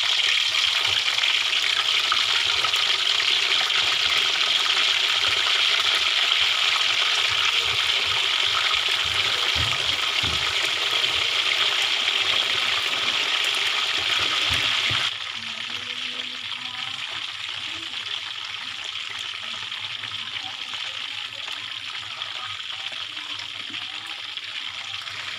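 Chicken pieces frying in hot oil in a wok: a steady sizzle and bubbling. About fifteen seconds in it drops suddenly to a quieter sizzle.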